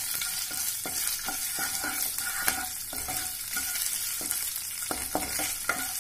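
Whole spices, ginger, green chillies and curry leaves sizzling in hot oil in a non-stick kadai as a plastic spatula stirs them, with irregular scrapes and taps of the spatula against the pan over a steady hiss. This is the tempering stage, where the spices are lightly fried before the kadhi batter goes in.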